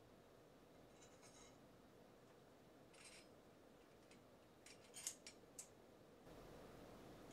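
Faint light metallic clinks and scrapes of small sword fittings, the tsuba handguard and seppa washers, being handled and slid onto a tanto blade. A few short touches come about a second in and three seconds in, and a small cluster comes around five seconds.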